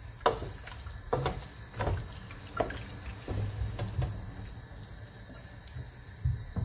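Wooden spatula stirring chunks of beef, snail and stockfish in a granite-coated pot, knocking and scraping against the pot roughly every 0.7 seconds.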